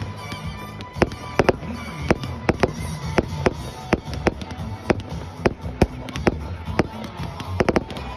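Fireworks going off in a quick, irregular run of sharp bangs and cracks, about two or three a second, with a cluster of rapid cracks near the end.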